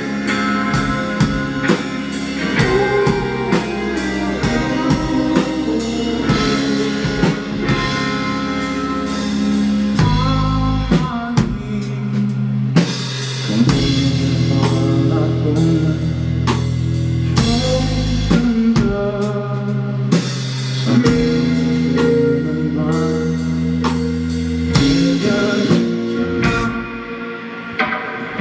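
Live rock band playing: drum kit, electric guitar and bass, with some singing, heard through a fan's recording in a club.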